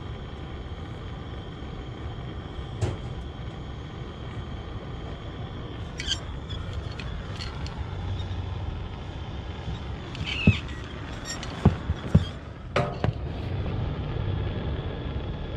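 A steady low rumble with a few sharp clicks and taps as a gas-heated soldering copper is worked against a galvanized sheet-metal seam. The loudest taps come in a quick cluster a little over two thirds of the way in.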